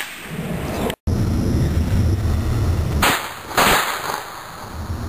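Two sharp bangs about half a second apart, around three seconds in, from small homemade explosive charges, over a steady low rumble.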